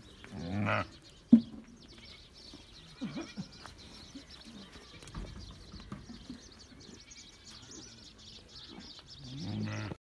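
Sheep bleating, one call about half a second in and another near the end, with a single sharp knock about a second in that is the loudest sound.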